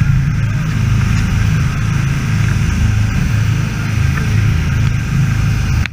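Fishing boat's engine running steadily at speed, a low drone under the rush of water and wind noise.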